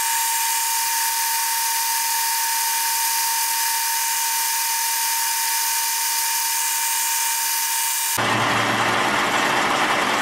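Vernon metal lathe's cutting tool chattering against the turning workpiece during a cut: a steady high-pitched ringing squeal over hiss. The chatter, which leaves chatter marks in the cut, stops about eight seconds in and the lathe runs on.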